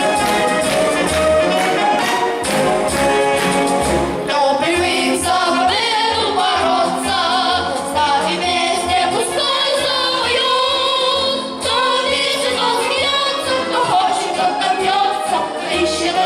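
Orchestral backing track with brass playing. About four seconds in, a singing voice with vibrato comes in over the accompaniment.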